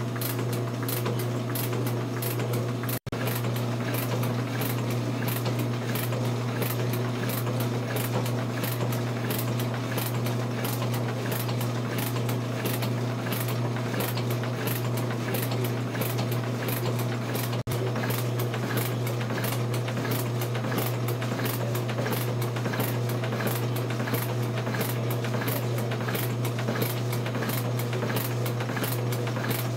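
Metal-working shaper cutting aluminum: a steady motor hum with the evenly spaced clatter of the ram stroking back and forth, the tool bit taking a cut on each pass. The sound breaks off for an instant twice.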